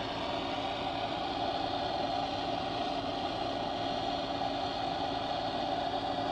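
Handheld gas torch burning steadily with an even roar as its flame heats the flywheel hub, to free a flywheel stuck tight on the crankshaft of a BRP E-TEC 800 engine.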